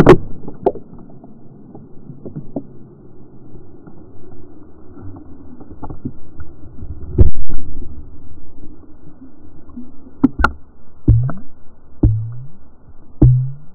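Muffled underwater sound from an action camera held under a river's surface: a dull rush of current with no high end, broken by knocks and thumps against the camera. The loudest knock comes about seven seconds in, and several more come near the end.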